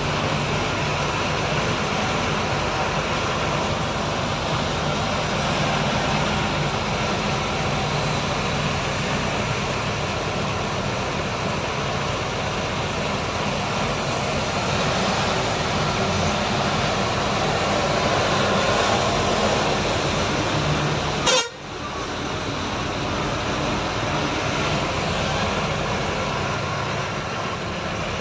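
Truck engine and road noise heard inside the cab while driving slowly in heavy traffic on a wet road, with vehicle horns honking. A single sharp knock about 21 seconds in, followed by a brief dip in the noise.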